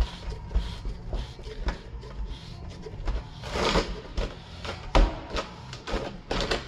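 A thread-taped plastic pipe fitting being screwed by hand into a plastic tank's threaded fitting: a string of small scrapes and clicks from the plastic threads, with a longer rasp near the middle and a sharper knock about five seconds in.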